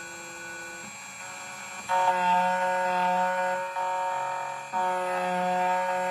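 CNC key cutting machine milling a Hyundai HY22 key blank: a steady motor whine that gets louder about two seconds in, dipping briefly twice as the cutter moves between cuts.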